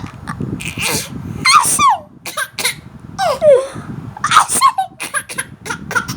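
A baby laughing in repeated high squeals that fall in pitch, with breathy bursts between them, delighted at an adult mimicking its sneeze.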